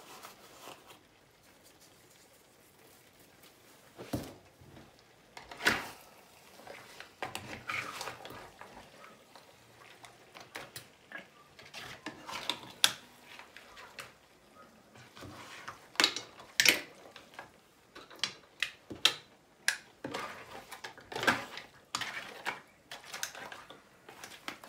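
A utensil stirring and tossing spaghetti with mussels in a frying pan: irregular knocks, clicks and scrapes against the pan, some sharper clacks among them.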